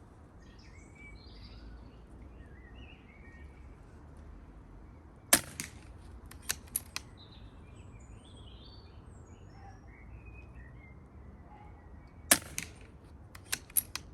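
Two silenced .177 PCP air rifle shots about seven seconds apart, each followed by a few lighter clicks. Birds chirp faintly over a low wind rumble.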